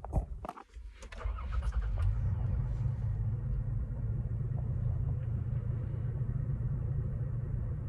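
2021 Toyota Tacoma engine starting: a few clicks, then about a second in the engine fires and settles into a steady idle.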